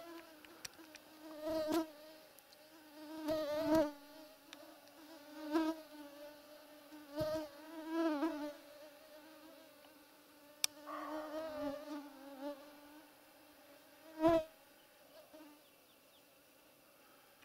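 A flying insect buzzing close to the microphone, swelling and fading over and over as it circles near it. A few soft knocks come in between, the loudest about three-quarters of the way through.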